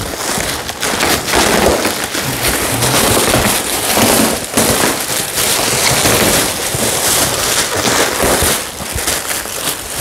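Plastic packaging bags rustling and crinkling loudly as wrapped coilover suspension parts are pulled out of a cardboard box.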